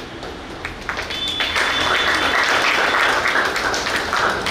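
Audience applauding: a dense patter of clapping that builds about a second in and eases off near the end.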